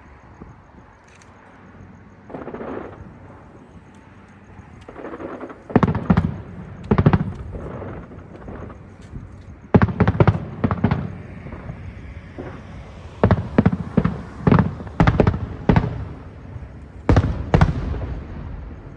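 Aerial firework shells bursting: about a dozen sharp booms in clusters, some with a short crackling tail, after two softer rushing sounds in the first few seconds.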